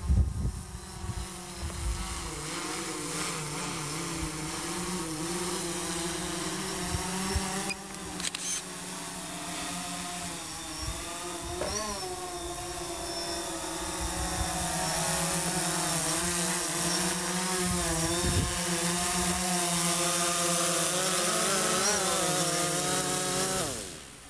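DJI Phantom 4 quadcopter's motors and propellers whining as it flies home and descends to land. The pitch wavers up and down with the motor speed, the whine grows louder as the drone comes close, and it cuts off suddenly near the end as the motors stop. Low gusty buffeting runs underneath.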